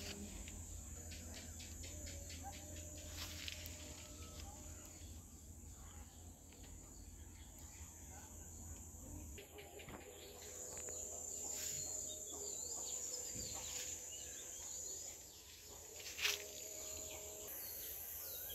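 Outdoor ambience: a steady high-pitched insect drone with a few faint bird chirps over a low rumble, and a sharp click about sixteen seconds in.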